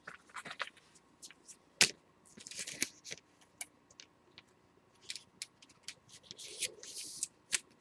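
Trading cards handled by hand: soft slides and rustles of cards against each other, with scattered light clicks and taps and one sharper tap a little under two seconds in.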